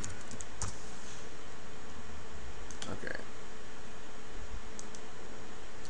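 A few scattered clicks from a computer keyboard and mouse over a steady hiss and faint hum.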